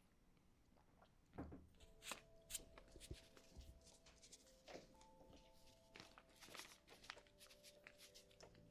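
Faint background music of soft held notes, with scattered light knocks and rustles.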